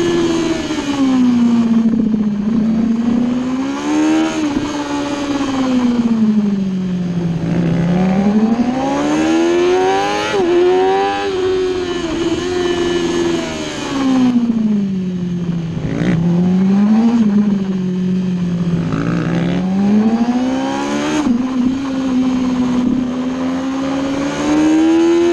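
Sportbike engine heard onboard at speed on a race track, its pitch climbing under acceleration and sinking under braking several times over, with sudden drops at gear changes, over steady wind rush.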